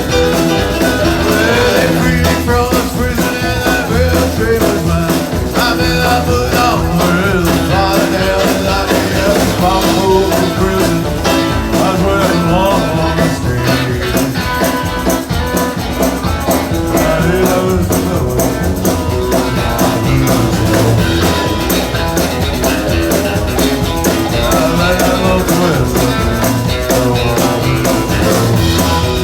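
Live band music in a rock-and-roll style, with guitar, drums and singing over a steady beat.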